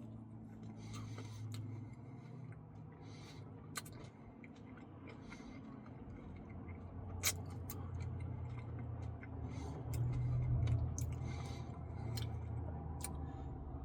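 Quiet, close-up chewing and mouth sounds of someone eating a Reese's Pieces Cookie Dough Blizzard, with scattered small clicks, over a steady low hum.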